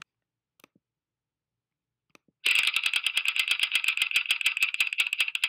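On-screen random name-picker wheel spinning, its ticking sound effect a rapid run of sharp clicks, about ten a second, starting about two and a half seconds in. A couple of faint single clicks come before it.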